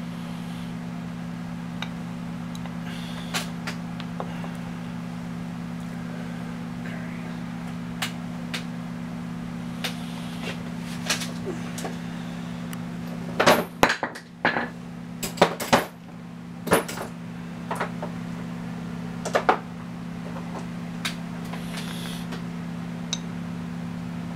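Scattered metal clinks and knocks of tools and engine parts being handled, with a cluster of louder knocks about halfway through. A steady low hum runs underneath.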